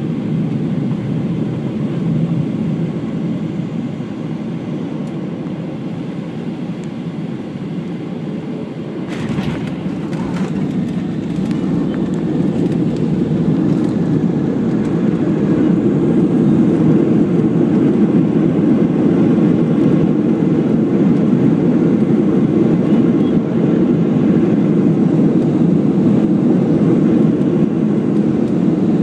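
Cabin noise inside a Boeing 737-700 landing: a steady rush of engines and airflow, then about nine seconds in the wheels touch down in a slightly rough touchdown with a few knocks and rattles. After that comes a louder, lasting roar as reverse thrust and braking slow the jet on the runway.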